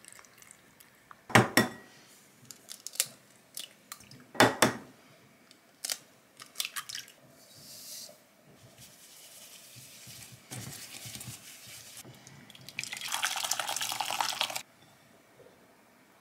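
Kitchen work sounds: a few sharp knocks and clicks of utensils or containers on a counter, then water running, loudest for about two seconds near the end before it cuts off.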